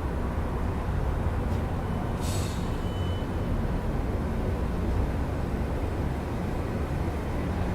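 Steady low rumble of city traffic heard through an open window at night, with a short hiss about two seconds in and a brief thin whine just after.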